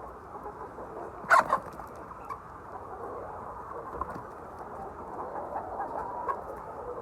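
A flock of laying hens in a poultry house, a steady chorus of clucking, with one brief loud sound about a second and a half in.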